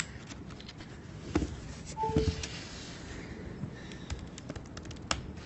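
Scattered light clicks and taps from handling things at a desk with a laptop. About two seconds in there is a short tone that steps from a higher note to a lower one.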